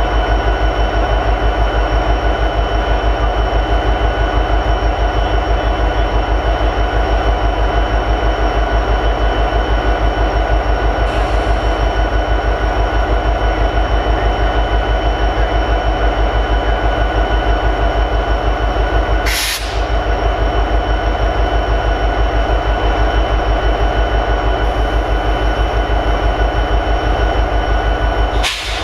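EMD 16-710 prime mover of an SD70ACe diesel-electric locomotive idling steadily, with a fast, even low pulse and a steady whine above it. The sound breaks off very briefly twice, about two-thirds through and near the end.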